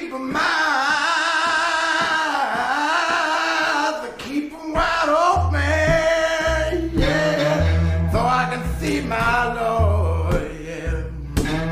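Slow song with a male voice: a long, drawn-out sung line with wavering pitch for about four seconds, then singing over a sparse bass line with a low note about every two seconds.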